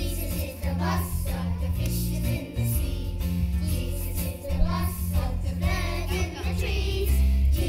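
Young children's choir singing together over an instrumental accompaniment with a strong, steady bass line.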